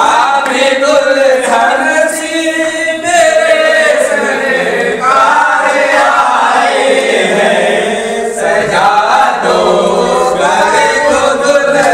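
A group of voices singing a chant-like song together, with no instruments heard.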